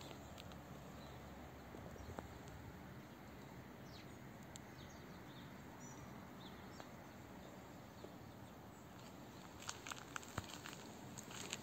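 Faint outdoor ambience, a steady low hiss, with footsteps on pavement coming in as short clicks about ten seconds in.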